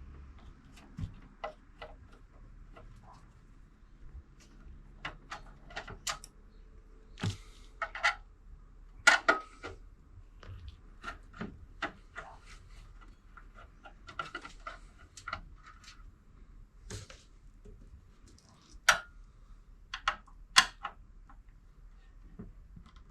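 Irregular light clicks and metallic taps of a screwdriver and screws being worked out of the power supply mounting in a steel desktop PC chassis, a few sharper clinks standing out.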